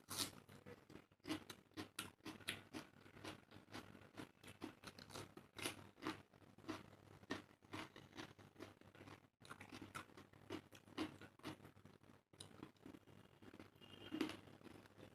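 Close-miked eating sounds from a meal of curry and rice: wet chewing, lip smacks and mouth clicks several times a second, with some crunching bites.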